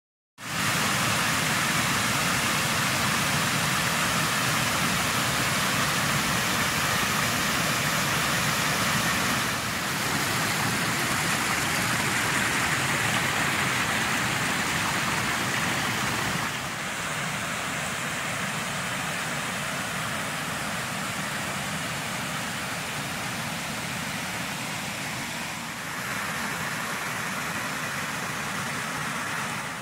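Creek water rushing over a small weir and rocks, a steady full rush that drops a little in level about 10, 17 and 26 seconds in.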